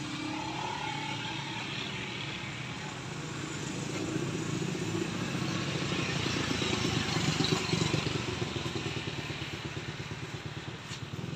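A motor vehicle's engine passing by, growing louder to a peak about two-thirds of the way through and then fading.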